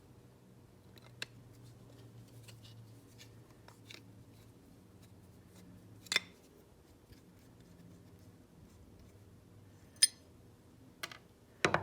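Scattered sharp metallic clicks and taps of small hand tools and generator parts being handled while the generator's end-plate screws are taken out, the loudest about six and ten seconds in and a quick cluster at the very end.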